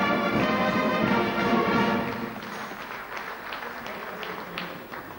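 Music with long held chords plays loudly and drops away about two seconds in, followed by a few scattered claps.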